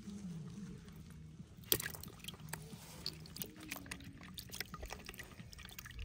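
Water splashing and dripping in a plastic bucket as a freshly caught fish is dropped in and moves in the shallow water: a sharp splash about two seconds in, then irregular small splashes and drips.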